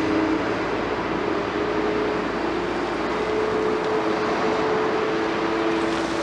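Liebherr 946 excavator running steadily, its diesel engine and hydraulics making an even mechanical noise with a steady whine that shifts a little in pitch now and then.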